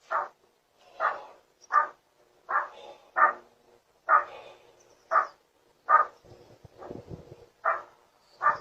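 A dog barking over and over, about ten short barks a little under a second apart.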